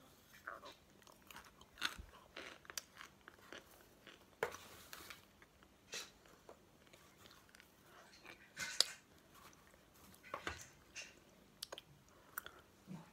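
Close-up chewing of crunchy raw cornstarch chunks taken from a spoon: scattered crisp crackles and crunches, with the loudest crunch about nine seconds in.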